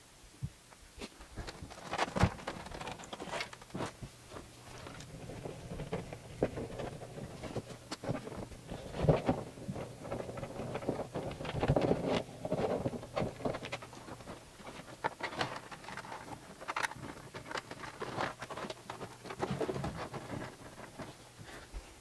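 Handling noises as a PS4 console and its cables are set in place: scattered light knocks, clicks and rustling, with a louder knock about nine seconds in.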